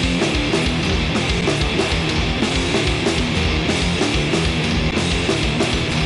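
Hardcore punk song played by a full rock band: distorted electric guitar, bass and drums, loud and steady with a driving beat.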